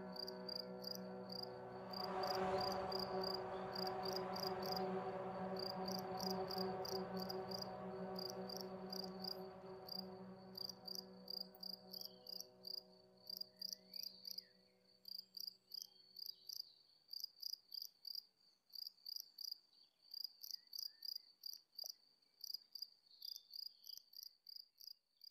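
Crickets chirping in a steady, evenly repeated high pulse, about two to three chirps a second. Under them a sustained droning chord of relaxation music swells about two seconds in, then fades out about two-thirds of the way through, leaving the crickets alone.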